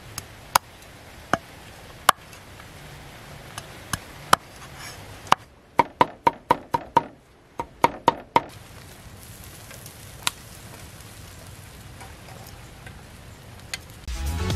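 A knife chopping on a wooden board. Separate sharp chops come about a second apart, then about ten quick chops in a row near the middle, then only a couple of stray knocks.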